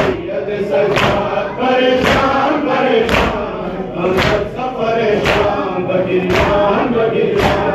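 A crowd of mourners chanting a noha together while beating their chests with open hands in matam. A sharp slap lands on the beat about once a second.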